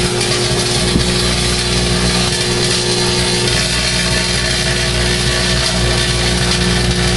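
Microwave oven running with metal inside: a steady electrical hum under a loud, continuous buzzing hiss of arcing.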